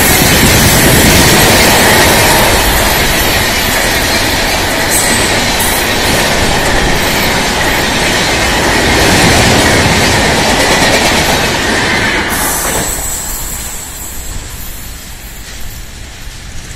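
Indian Railways express passenger train passing close by at about 110 km/h: a loud, steady rush of wheels on rail with clickety-clack. About twelve seconds in the last coach passes and the noise drops suddenly to a fading rumble.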